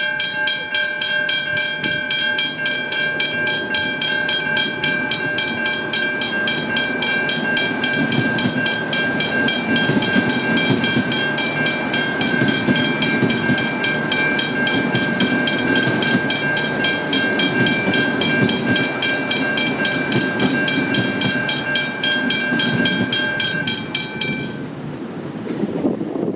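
Westinghouse hybrid level crossing bell ringing in rapid, even strokes with a steady high ring, cutting off about two seconds before the end. Underneath, a V/Line VLocity diesel railcar rumbles past the crossing, loudest in the middle.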